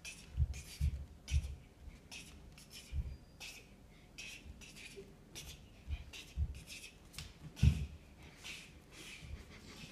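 Bare feet thumping and slapping on a hardwood floor as a child dances, about a dozen irregular thumps with the heaviest a little before the end.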